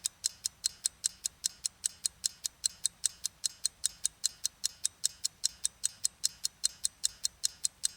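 Clock-ticking sound effect of a quiz countdown timer: evenly spaced sharp ticks, about four a second.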